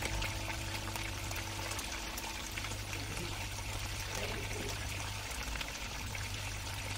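Water running steadily in a kitchen, with small splashes and clicks.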